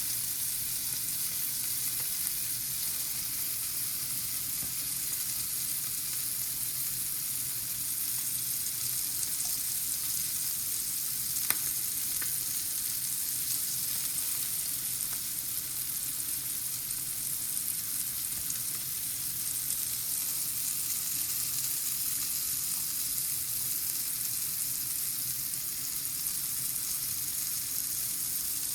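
Steak searing in butter in a hot pan: a steady sizzle, with one small click about eleven seconds in.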